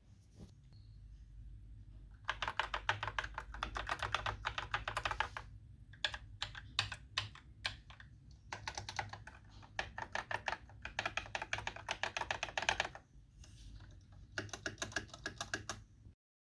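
Typing on a Fantech Maxpower MK853 mechanical keyboard: runs of fast keystrokes broken by short pauses, with a few separate keypresses around the middle. It stops abruptly near the end.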